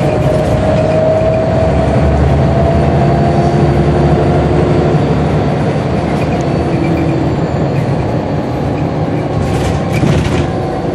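Scania L94UB single-deck bus heard from inside the saloon while on the move: the diesel engine runs with the whine of its ZF automatic gearbox, and the whine rises slowly over the first few seconds. A few short rattles come near the end.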